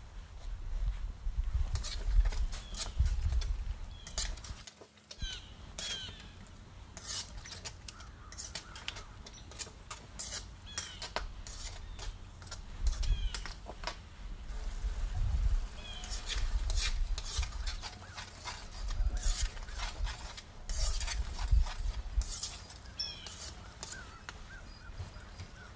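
A spatula stirring chicken karahi in a wok on high heat: repeated clacks and scrapes of the utensil against the pan over the sizzle of the food, with low thumps from handling. The sound breaks off briefly about five seconds in.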